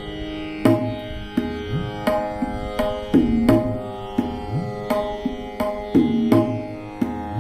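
Instrumental introduction to a ghazal: tabla strokes about every 0.7 s, the bass drum's pitch now and then gliding upward, under sustained melody notes.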